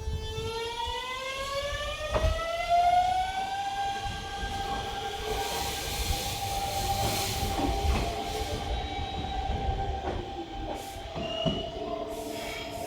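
A Hanshin electric train runs through the station: the whine of its traction motors rises in pitch over the first few seconds, then holds at a steady pitch over a low rail rumble. A few sharp clicks from the wheels come through.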